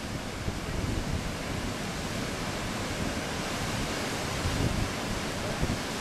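Waterfalls pouring over rock into pools, a steady rushing of water, with low gusts of wind on the microphone swelling and fading a few times.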